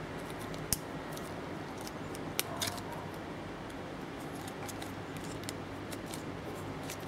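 Stiff printed card pieces being handled and slotted together: scattered light clicks and crinkles, with sharper snaps about 0.7 s in and around 2.5 s, over a steady background hiss.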